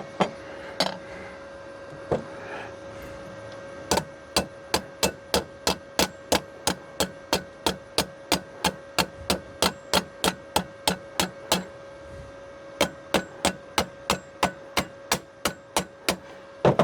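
Hammer striking a sheet-metal patch piece to form a bend, in quick steady blows about three a second, in two runs with a short pause between. A few single knocks come before the runs, and a steady hum sits underneath.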